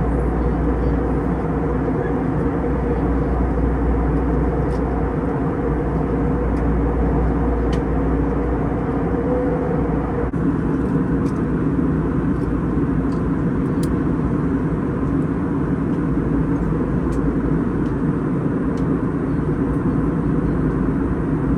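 Airliner cabin noise during the descent: a steady drone of engines and rushing air with a low rumble and a few held hum tones, which shift slightly about halfway through.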